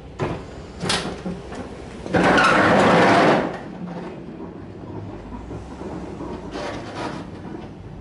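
Fisher HD snow plow's hydraulic pump running for just over a second, about two seconds in, as the blade is swung from angled to straight, over the low, steady running of the 2016 Ram 2500's engine.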